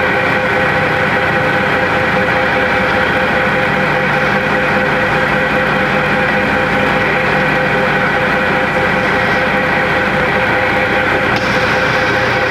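A truck's diesel engine idling steadily, heard from inside its cab. A higher hiss joins near the end.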